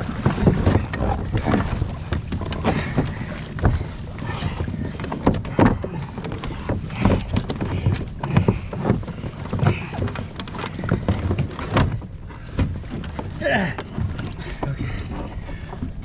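Irregular knocks and bumps of plastic kayak hulls and gear being handled as the boats are held together, over a low steady rumble.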